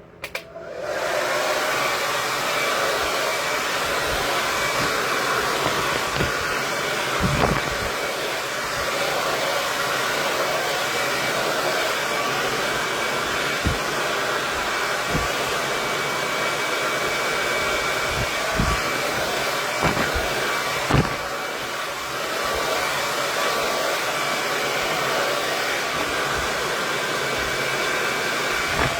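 KISS 1875-watt Pro Tourmaline Ceramic hair dryer switched on about a second in and running steadily with a rushing hiss and a faint whine, with a dip near the end and a few soft bumps as it is worked through the hair.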